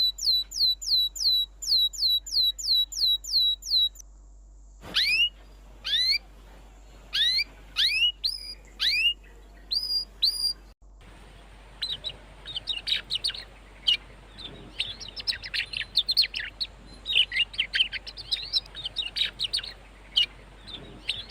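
Canaries in a small aviary calling and singing: a fast run of repeated falling notes, then single rising call notes about once a second. After an abrupt break about halfway through, several birds twitter together in a dense, continuous song.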